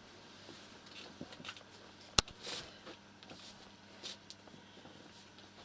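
Quiet room with soft rustling from the pages of a large prayer book being leafed through, and a single sharp click about two seconds in.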